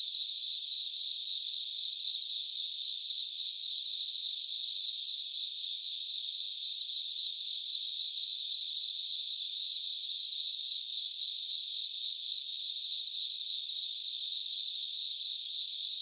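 A dense chorus of autumn night insects calling together, a steady, unbroken high-pitched ringing with no pauses.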